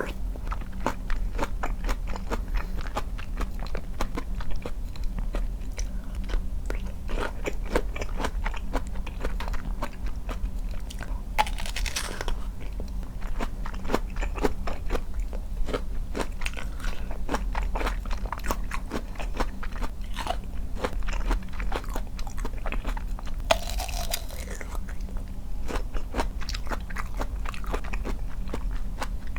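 Close-miked eating of a juicy flat (donut) peach: bites and steady wet chewing made of many small crunching clicks, with two louder bites, about 11 seconds and about 24 seconds in. A steady low hum lies underneath.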